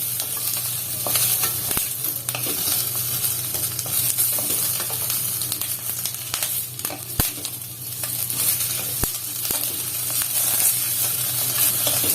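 Red chilli peppers sizzling as they are sautéed and stirred in hot oil in a pan, with a few sharp pops.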